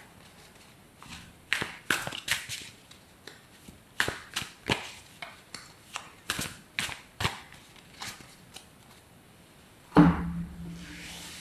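A deck of oracle cards being shuffled by hand, a run of sharp, irregular clicks of cards knocking together. Near the end, a thump as the deck is set down on the cloth, then a short fading swish as the cards are spread out.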